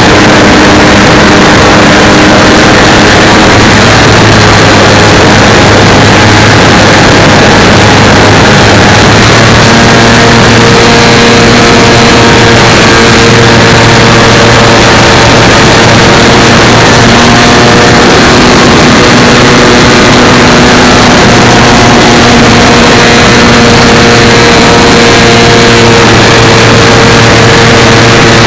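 The gas engine of a 30% Yak 54 radio-control aerobatic plane running in flight, heard very loud and close from a camera on the wing. Its pitch steps up about ten seconds in and wavers with the throttle, over a steady rush of air.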